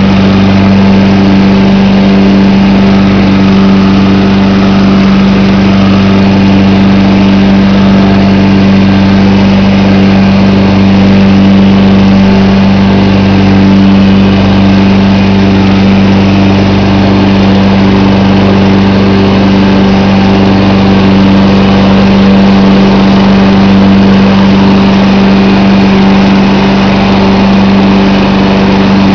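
1995 John Deere 14SE walk-behind mower engine running loud and steady at a constant pitch while it is pushed over the lawn cutting grass.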